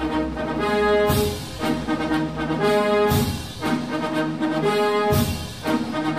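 Background music: held, brass-toned chords over a regular beat.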